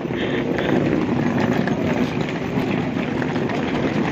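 Wheels of several trolley suitcases rattling over a rough dirt and gravel path, a steady rumble mixed with footsteps.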